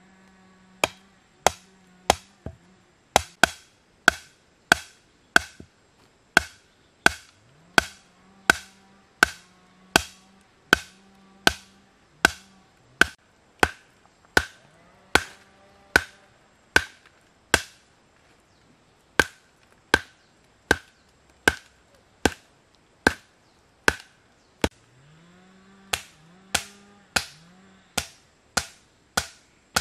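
Steady chopping: a blade striking wood in a regular rhythm of about one and a half strokes a second, each a sharp knock with a short ring. There is a brief pause a little past halfway.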